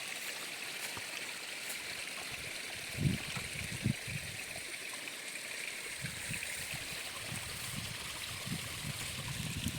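A steady outdoor hiss with a few soft, low thuds, about three and four seconds in and several more in the later half.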